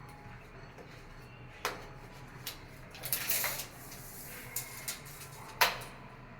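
Scattered knocks and clatter from objects being handled during work, with a short scraping rustle about three seconds in; the loudest knock comes near the end.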